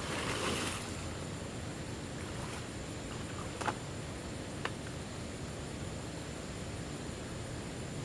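Steady hiss of running water, with a brief rustle at the start and two sharp clicks about a second apart midway.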